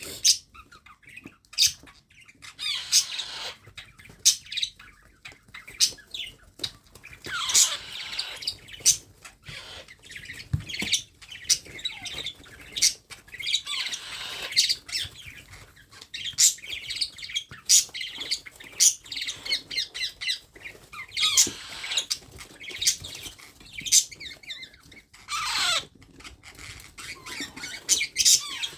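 Baby parrot squawking in loud falling calls every few seconds, with many short sharp clicks in between.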